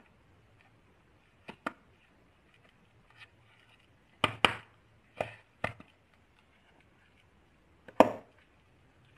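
Pink plastic lid being pressed and snapped down onto a plastic container by hand: about seven sharp plastic clicks and knocks, mostly in pairs, the loudest near the end.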